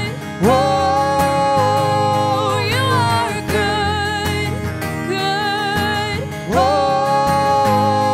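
A woman singing a worship song in two long phrases of held, wavering notes, the first about half a second in and the second about six and a half seconds in, over instrumental band accompaniment.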